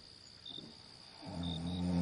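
A person snoring: a deep, pitched snore starts a little past halfway and grows louder. Behind it, night insects keep up short high chirps about once a second over a steady high drone.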